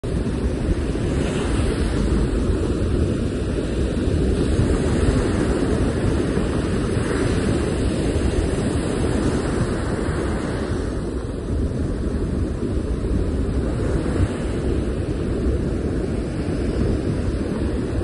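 Surf breaking on a sandy beach: a steady rush of waves that swells every few seconds, over a low rumble of wind on the microphone.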